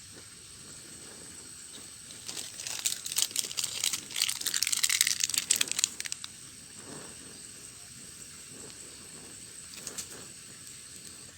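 Packaging crinkling and rustling in a dense run of crackles from about two to six seconds in, over a faint steady hiss, with one short click near the end.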